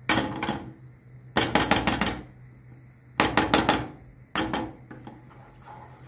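Dishes and cutlery clattering in four short bursts of rapid clinks, spaced about a second apart.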